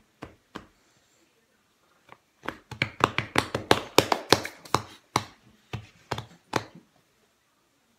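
A child's hands slapping biscuit dough flat on a floured granite countertop: a couple of light pats, then from about two and a half seconds in a quick run of sharp slaps, several a second, slowing and stopping near the end.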